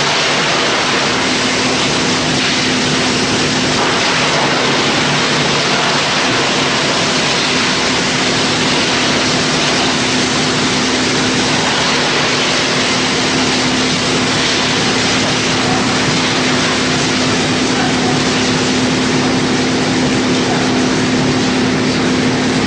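Drum wood chipper running: a loud, steady rushing noise over a constant low hum.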